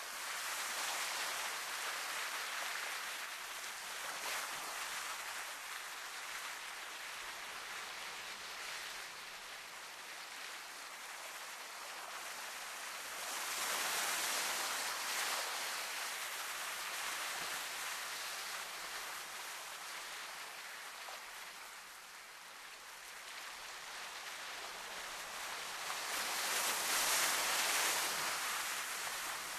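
Sea waves washing ashore: a steady hiss of surf that swells and ebbs slowly, rising three times about a dozen seconds apart.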